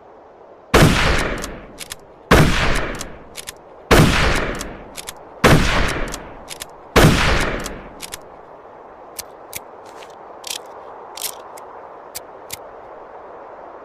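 Mosin-Nagant M91/30 bolt-action rifle firing five shots about a second and a half apart, each with a long fading tail and a couple of short clicks after it. A run of lighter clicks follows the last shot.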